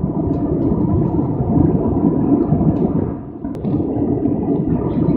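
Jet airliner cabin noise at cruise altitude: a steady, low drone of engines and rushing air. A single small click comes about three and a half seconds in.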